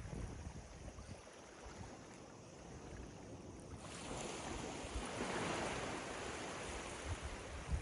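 Ocean surf on a beach: a wave breaks and washes in about four seconds in, swelling and then easing off. Wind buffets the microphone at the start and again near the end.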